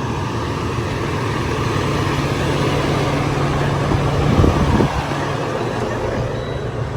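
Semi truck driving, with steady engine and road noise. A low engine hum holds for a few seconds mid-way, and a couple of dull thumps come about four and a half seconds in.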